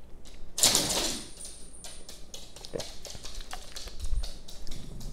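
A person drinking from a plastic bottle: a loud breathy sip or exhale about half a second in, then a run of small lip smacks and tongue clicks while tasting the drink.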